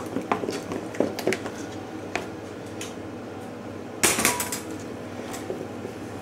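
A utensil scraping and tapping against a mixing bowl as butter and flour are worked together into a beurre manié, with one louder, ringing clink about four seconds in.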